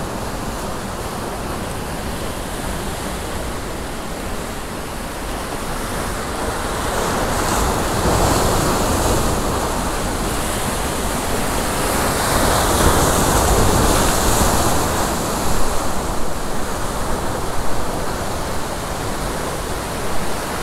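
Ocean surf surging and breaking against rocks: a continuous rush of white water that builds to a louder surge partway through, with a few sharper splashes near the end.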